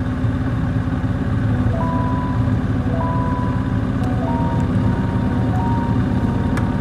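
Triumph Speedmaster's 1200 cc parallel-twin engine running steadily on the move. A simple melody of single held notes comes in about two seconds in, over the engine.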